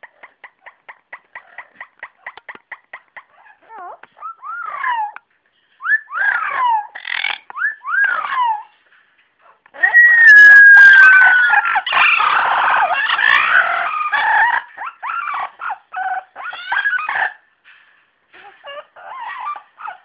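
Captive parrots calling: a quick run of short repeated notes, then several falling whistles. About ten seconds in, one loud long falling whistle rises over calls from several birds at once, followed by scattered shorter calls.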